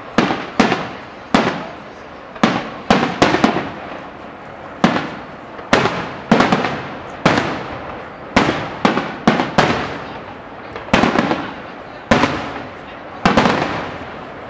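Aerial fireworks shells bursting overhead: an irregular series of sharp bangs, roughly one or two a second, each trailing off in a short echoing rumble.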